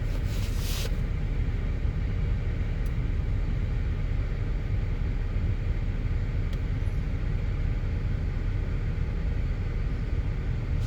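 2008 GMC Acadia's 3.6-litre V6 idling with a steady low rumble while it misfires, the fault traced to cylinder 5's ignition coil and spark plug.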